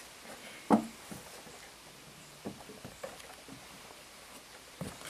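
A few separate knocks and thumps on wooden boards, the loudest about a second in, as a Tunturi Pappa moped is wheeled by hand over a shed floor towards a plank ramp; the moped's engine is not running.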